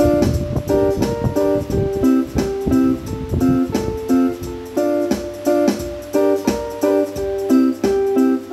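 Electronic keyboard played in a steady run of short melody notes and small chords, each note starting sharply and fading quickly.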